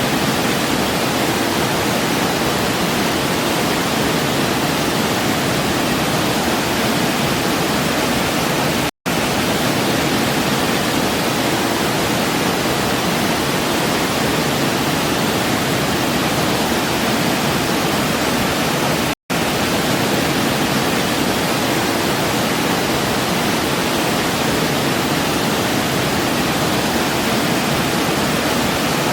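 Waterfall rushing in a steady, even roar of water, cutting out to silence for an instant twice, about ten seconds apart.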